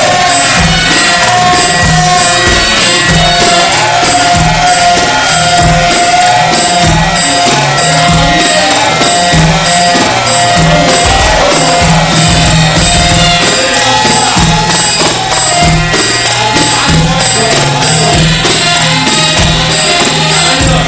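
Egyptian mahraganat music with an added echo effect, playing loud with a steady, heavy beat and a wavering lead melody.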